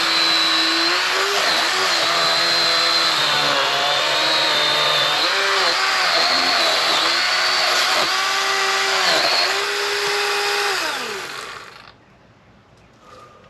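Electric chainsaw cutting through a tree trunk, its motor pitch dipping and recovering again and again as the chain bites under load. About eleven seconds in the motor is released and winds down to a stop.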